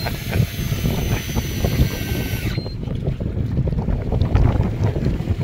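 Wind buffeting the microphone aboard a boat at sea, a constant low rumble. For the first two and a half seconds a high hissing whine with steady tones rides over it, then cuts off suddenly.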